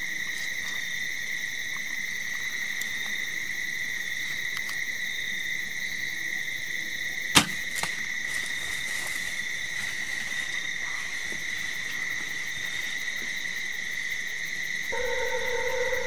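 Steady chorus of crickets trilling, with one sharp crack about seven seconds in: the bowstring released on a shot at a deer. Near the end a lower steady tone joins the chorus.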